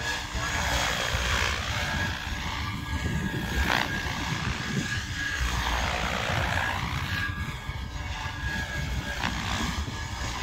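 Electric SAB Kraken 700 RC helicopter in flight: a continuous rotor and motor whine that sweeps up and down in pitch as it moves about, over a low rumble.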